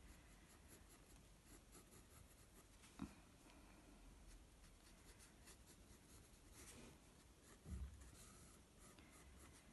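Faint scratching of a soft graphite pencil on sketchbook paper as an outline is drawn in light strokes. There is a single soft click about three seconds in and a low soft knock near the end.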